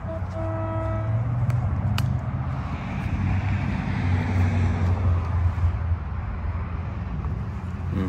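A cable locator receiver's steady electronic tone, which stops about a second in. It gives way to a low rumble with a hiss that swells and fades over a few seconds.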